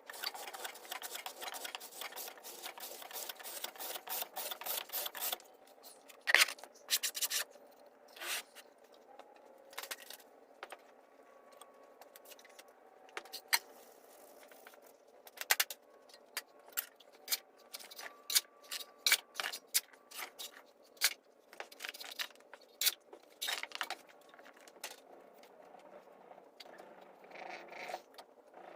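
Irregular scraping with sharp taps and clicks: a fast run of them in the first few seconds, then scattered louder knocks.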